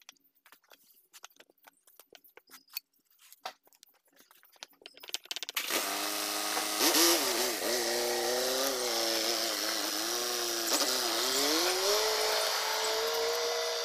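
Light clicks and taps of metal parts being handled, then about five and a half seconds in a motor starts up loud and runs on, its pitch wavering up and down before it settles higher and steadies.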